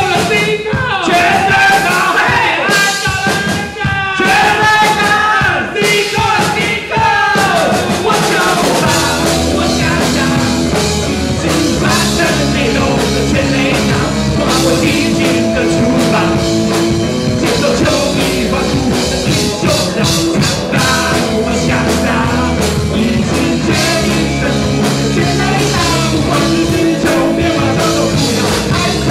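Live rock band playing with electric guitar, bass and drum kit. Voices sing or shout over the band for the first several seconds, then it settles into an instrumental stretch of held guitar notes and chords.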